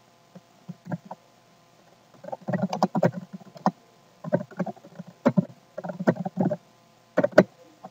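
Computer keyboard typing in irregular runs of keystrokes, with one sharper click near the end.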